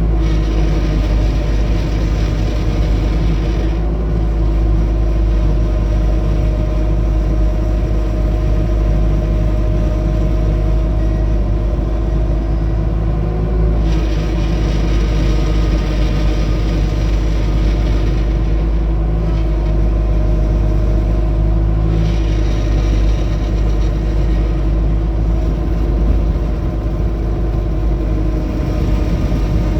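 Bobcat T250 compact track loader's diesel engine running steadily. A brighter, hissing noise on top comes in for a few seconds at a time, three times: the noise the machine makes when turning.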